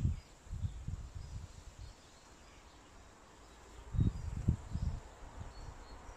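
Outdoor garden ambience: irregular low gusts of wind on the microphone, strongest about four seconds in, with faint bird chirps. The cricket ball rolling across the grass makes no clear sound of its own.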